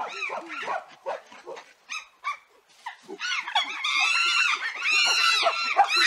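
Chimpanzees calling: a few short, scattered calls at first, then from about three seconds in a dense run of overlapping calls that rise and fall in pitch.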